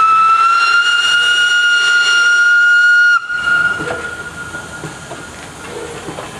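Hr1 steam locomotive's whistle sounding one long, steady blast for departure, rising slightly in pitch and cutting off sharply about three seconds in. Steam hiss and light clanking follow as the engine starts to roll.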